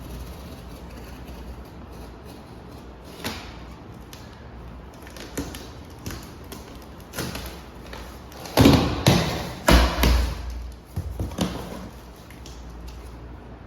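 Thumps, knocks and scraping from a large cardboard gaming-chair box being opened and unpacked, with a run of louder thumps about nine seconds in.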